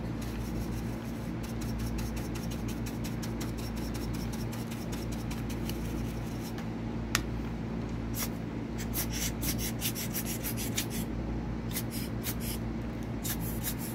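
Quick light scratching and rubbing strokes of a small brush scrubbing dust out of a laptop's insides, over a steady low hum.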